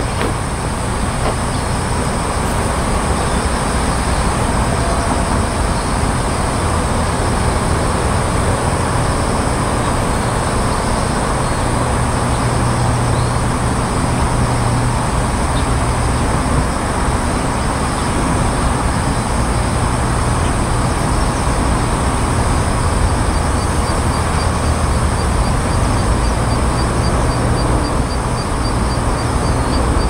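Steady low rumble of road traffic, with a steady high hiss above it.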